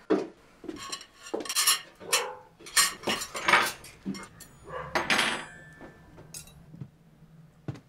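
Metal cutlery and ceramic plates clattering and clinking as a dinner table is set: several bunches of clatter, one leaving a brief ringing clink about five seconds in.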